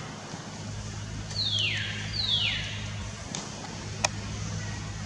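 Infant long-tailed macaque crying: two high, falling cries in quick succession, the distress calls of a baby monkey denied the nipple.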